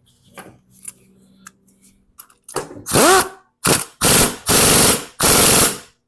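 Power impact wrench run in five short loud bursts, the first spinning up with a rising whine, tightening the nut on a mower-deck blade spindle fitted with new bearings. Before that come a few light metallic clicks as the parts are handled.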